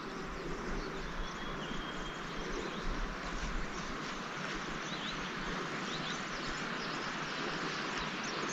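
Steady, even rushing outdoor noise, with a few faint, short, high bird chirps over it.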